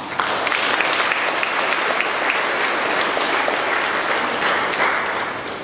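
Church congregation applauding. The clapping starts suddenly and dies away near the end.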